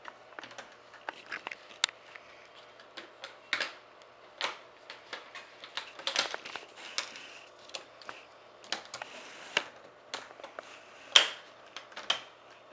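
Plastic screen bezel of an Acer Aspire 5253 laptop being pressed onto the lid, its snap clips clicking into place one after another: irregular sharp clicks with short plastic rustles between them, the loudest near the end.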